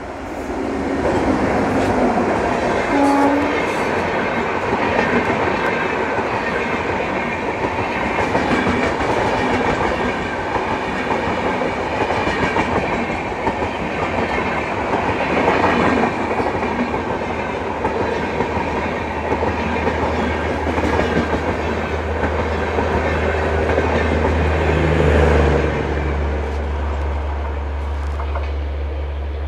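An electric-locomotive-hauled passenger train passing close at speed: its wheels rumble and clack over the rail joints. The noise builds about a second in and eases near the end as the last coach goes by.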